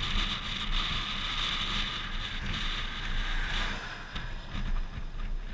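Wind noise on a hood-mounted GoPro's microphone, with a pickup truck driving past on the highway about four seconds in.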